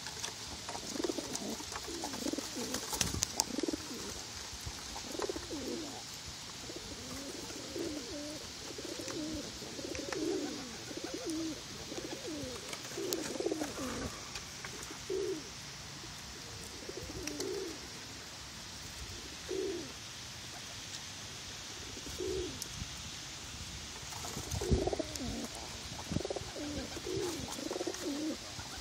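Feral rock pigeons cooing over and over, low burbling coos one after another. They thin out in the middle and come thick and fast near the end. This is the display cooing of a male pushing among the flock.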